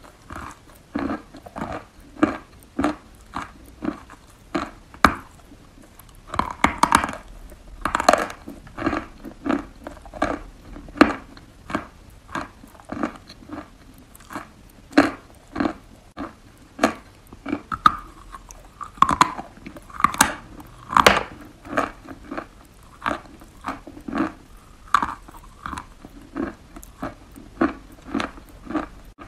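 Wet sawn chalk being bitten and chewed: a steady run of soft crunches, about two a second, with a few louder crunches along the way.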